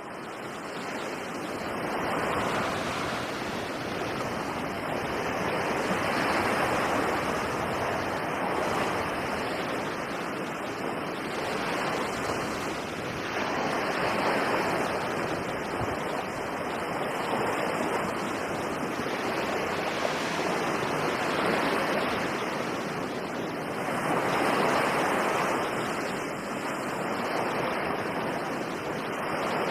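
Sea surf washing in, in repeated swells that rise and fall every few seconds.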